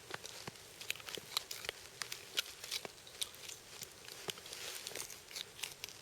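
Hunting knife working on a deer carcass: irregular small clicks, crackles and tearing as the blade cuts and the hide and meat are pulled apart.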